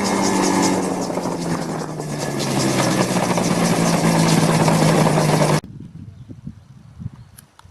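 Autogyro's two-stroke Rotax 503 engine and propeller running loud, the pitch slowly falling, then cut off abruptly about five and a half seconds in, leaving only faint scattered clicks.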